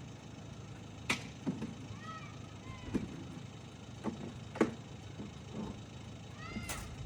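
A cat meowing twice, short arched meows about two seconds in and near the end, over a low steady rumble, with several sharp clicks or taps in between.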